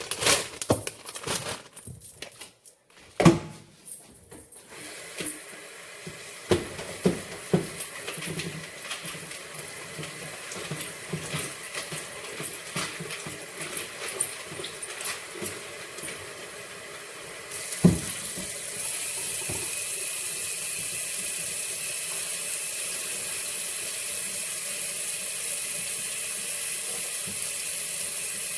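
Scattered knocks and clatter of things being handled and set down, with one sharp knock about two-thirds through. Just after it, a tap is turned on and water runs steadily.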